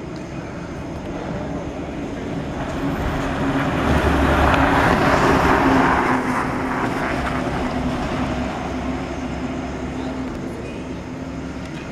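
Road traffic: a large vehicle passes close by, its engine and tyre noise swelling to a peak around five seconds in and then fading, over a steady engine hum.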